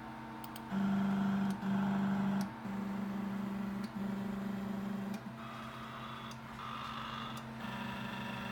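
NEMA stepper motors of a DIY four-axis CNC hot wire cutter driving through the homing cycle: a steady pitched whine that stops and restarts about half a dozen times, changing pitch and loudness as each axis moves on to its limit switch, with short clicks at some of the changes.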